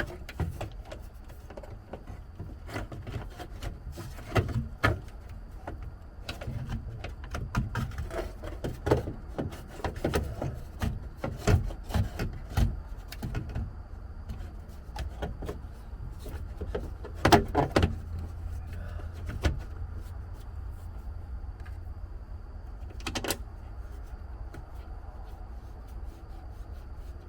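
Irregular clicks, knocks and rattles of parts and tools being handled while working on a Humvee, busiest in the first twenty seconds and loudest at a cluster of knocks past the middle, over a low steady rumble.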